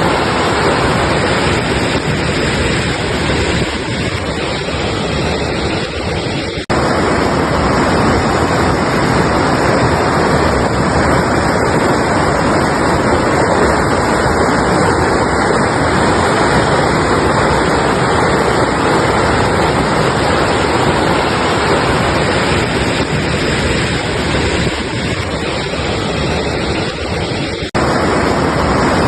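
Mountain river rushing steadily over rocks, a continuous loud roar of water. It breaks off for an instant about seven seconds in and again near the end, where the recording is spliced.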